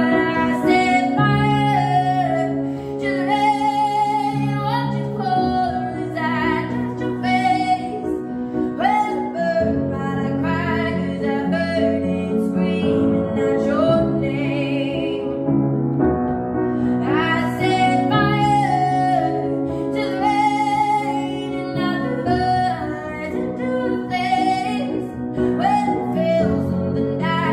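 A woman singing a pop song with vibrato over upright piano chords, in phrases with short breaks between them.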